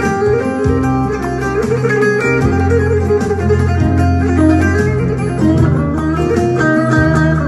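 Four-string electric bağlama played in a fast run of quick picked notes over a sustained low tone.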